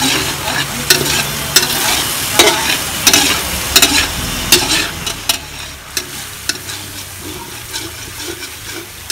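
Coconut cream bubbling and sizzling in a metal wok while a metal spatula stirs it, scraping and clicking sharply against the pan. The stirring keeps the cream from sticking and burning as it cooks down into latik. The clicks come often at first and thin out after about five seconds.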